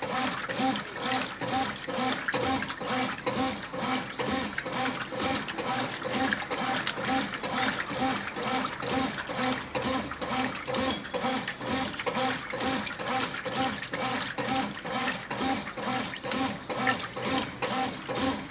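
Brastemp BWQ24A top-load washing machine agitating in its wash stage: water and clothes sloshing in the tub in a steady, evenly repeating rhythm as the agitator swings back and forth.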